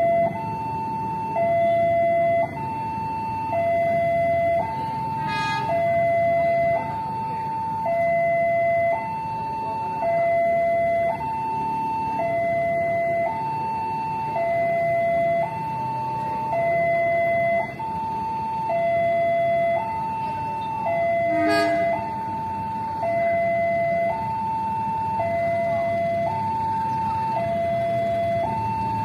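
Railway level-crossing warning alarm sounding a steady two-tone high-low pattern, each tone held about a second, signalling an approaching train. Two brief sharp sounds cut in over it, one early and one about two-thirds of the way through.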